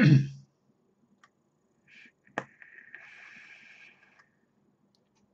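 A brief voice sound at the start. Then a click and about a second and a half of steady hissing: a draw on a box-mod e-cigarette firing a 0.56-ohm coil at about 45 watts.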